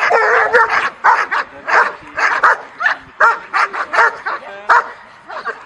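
Young German Shepherd, about a year old, barking repeatedly at the helper during protection work, in a quick series of about two to three barks a second.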